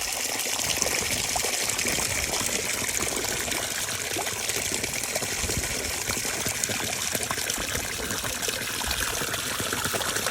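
Water falling and splashing at a small waterfall, a steady rushing hiss that does not change.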